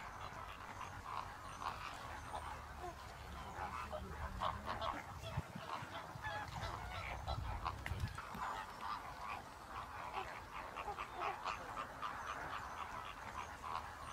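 A flock of greater flamingos calling: a continuous chorus of overlapping goose-like honks and chatter.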